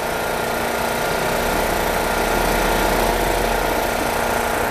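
Heavy truck's diesel engine running steadily under load as the truck pulls away, growing gradually louder.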